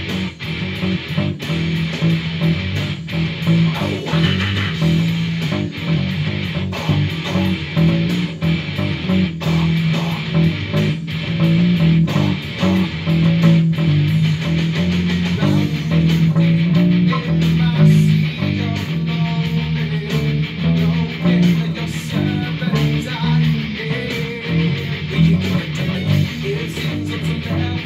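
Electric bass guitar played along with a heavy metal track that has drums, the bass notes loud and steady under a driving beat.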